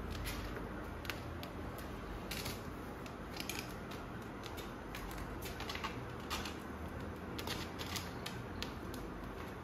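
A kitten's claws catching and scratching on the mesh netting of a fabric pop-up playpen: irregular light scratches and clicks.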